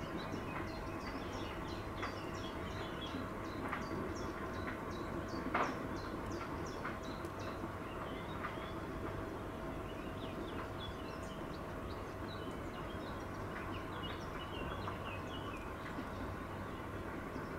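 Many short, high bird chirps and twitters at a pond, over a steady low background hum.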